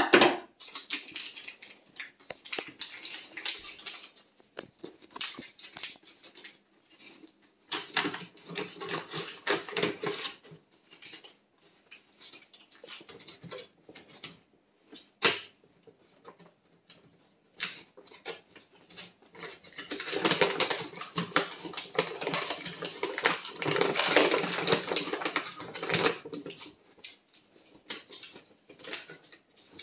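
Crinkling and rustling of mylar food-storage bags and a plastic oxygen-absorber packet being handled, in irregular stretches, the longest and loudest in the last third, with a sharp click at the very start and another about halfway.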